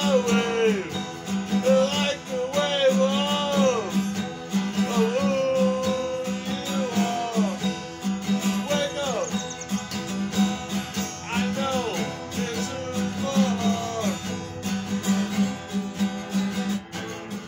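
Acoustic guitar strummed in a steady rhythm, with a man singing along over it until the singing stops a few seconds before the end.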